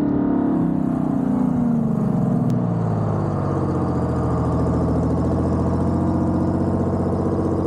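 1947 Silversides bus's diesel engine running as the bus drives, its pitch falling over the first few seconds, then rising gently.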